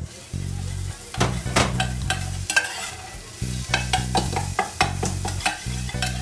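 Metal spatula scraping and clinking against a saucepan while stirring food that sizzles as it fries, with irregular knocks of the spatula on the pan.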